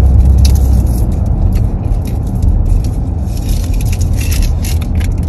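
Low, steady rumble of a car heard from inside the cabin, with scattered light clicks and rattles of things being handled.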